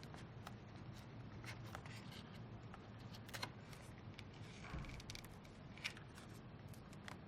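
Faint handling sounds as carbon fibre tape is peeled off a plug and a speaker cable connector is unplugged: a few small clicks and one short scratchy rustle over a low steady hum.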